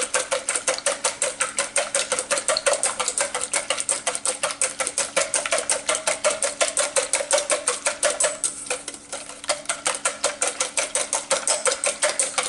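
Eggs being beaten in a stainless steel mixing bowl, a metal utensil clicking rapidly and evenly against the bowl's sides several times a second. The strokes ease off briefly about nine seconds in.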